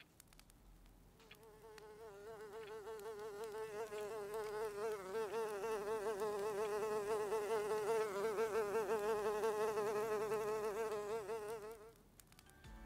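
An insect buzzing with a steady drone that wavers quickly in pitch. It grows louder over several seconds and stops abruptly near the end.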